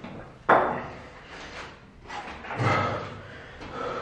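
A single sharp thump about half a second in, followed by quieter, indistinct sounds.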